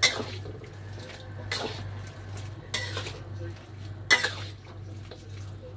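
A metal utensil scraping and knocking against a cooking pot while stirring the simmered chicken wings: four short clatters about a second and a half apart, the last the loudest, over a steady low hum.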